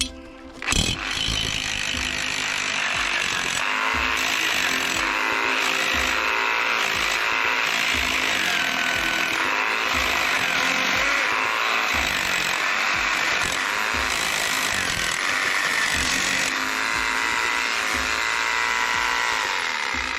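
Power drill turning a homemade steel auger bit as it bores into garden soil. It starts about a second in and runs steadily under load, its pitch wavering as the bit bites, then winds down near the end.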